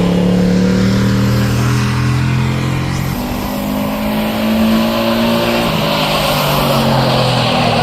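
Edited-in race car sound effect: an engine running at high revs, its pitch shifting about three seconds in, with a rising rush of noise near the end.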